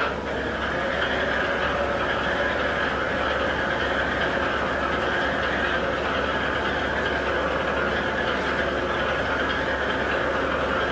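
Heavy machinery running with a steady, unbroken engine noise.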